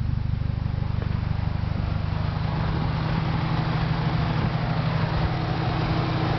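1997 Mitsubishi Eclipse GSX's turbocharged 2.0-litre four-cylinder engine running steadily at a constant speed, with no revving. A faint extra steady tone joins about three seconds in.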